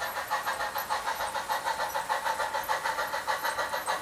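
HO-scale model train running, a fast, even pulsing of about six beats a second over a steady hum.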